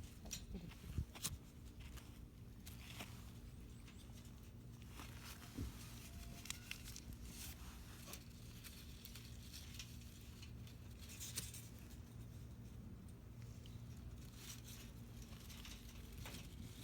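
Intermittent rustling, crinkling and small clicks from hands handling dry tinder and fire-starting materials.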